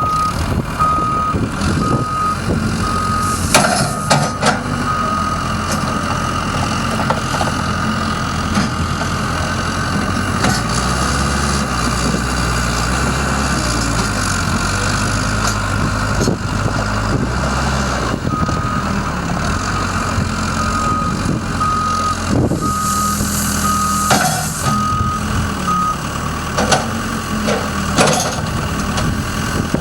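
Backhoe's diesel engine running while its reversing alarm beeps about once a second, first at the start and again in the second half. The engine works harder in the middle stretch, and a few sharp knocks sound during the beeping spells.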